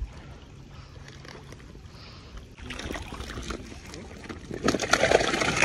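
Muddy backwater sloshing and splashing close by as men wading chest-deep handle a fish. It is quiet for the first couple of seconds, then grows louder and busier, with dense crackling splashes near the end.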